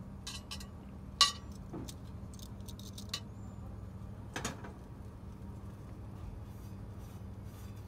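Light clicks and clinks of a metal frying pan and a portable gas stove being handled, with the sharpest clink about a second in. A steady low hum continues underneath.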